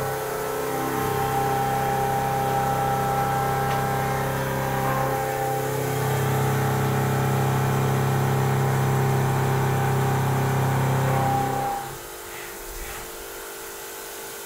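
A machine tool running steadily with a constant pitched hum, then shutting off about twelve seconds in.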